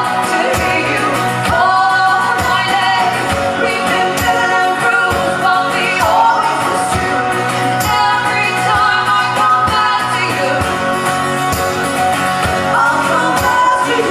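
A live band playing a song: sung vocals over guitar with a steady beat.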